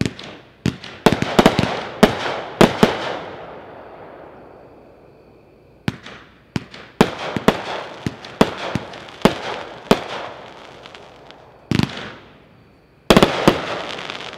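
Epic Fireworks "Mad Macaw" 33-shot consumer cake firing: sharp bangs in quick volleys, a tight cluster in the first three seconds, another run from about six to ten seconds, then a louder pair near the end, each bang trailing off in an echo.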